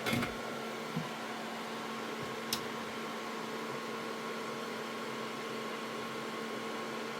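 Steady hum and hiss from a small fan or other electrical equipment running, with fixed tones over a noise bed. A soft knock right at the start, a lighter one about a second in, and a sharp click about two and a half seconds in.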